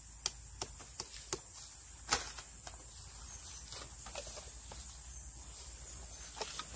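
Scattered light knocks and taps as a green bamboo tube fish trap is handled, tipped and set down on dry palm leaves, the sharpest knock about two seconds in, over a steady high-pitched hiss.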